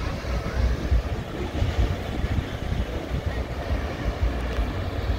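Wind buffeting the phone's microphone, a gusty, uneven low rumble, over a steady wash of surf.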